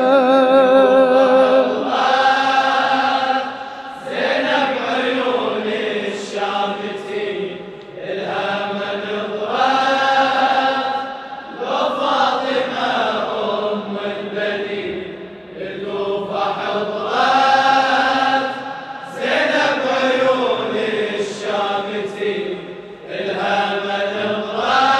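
Men's voices chanting a Shia latmiyya mourning refrain, a melodic line of rising and falling phrases about three to four seconds long with short breaks between them.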